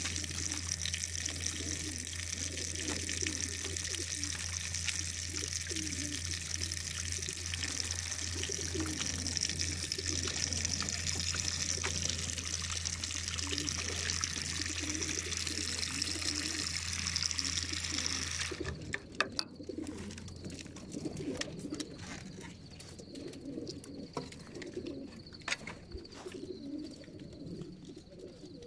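Water streaming along the drinking troughs of a racing-pigeon transport trailer, with a steady low hum, while the crated pigeons coo. About two-thirds of the way through, the water and the hum cut off suddenly, leaving the cooing and scattered clicks.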